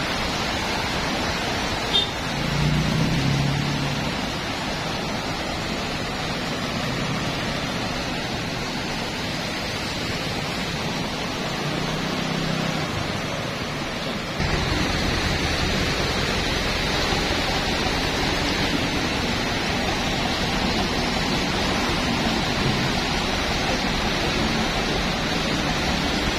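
Floodwater flowing across a road, a steady rushing noise, with vehicles driving through it and the low hum of their engines coming and going. About halfway through, the sound steps up abruptly and gets louder, with a deeper rumble underneath.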